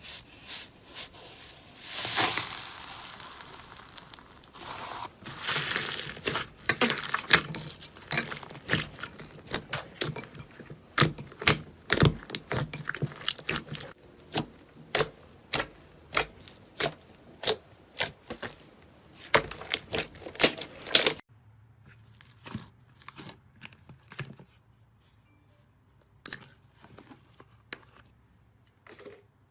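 Slime being squeezed and pressed by hand, giving a dense run of crackles and pops, with a few louder snaps. About two-thirds of the way through it drops to a few faint, scattered clicks.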